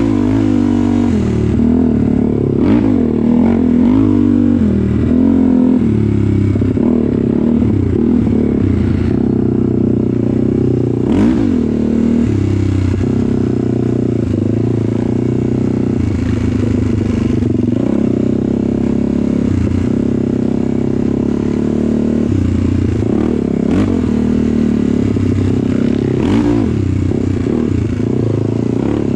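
Off-road vehicle's engine running while riding a dirt trail, its pitch rising and falling with the throttle, with a few sharp knocks and rattles from the machine over bumps.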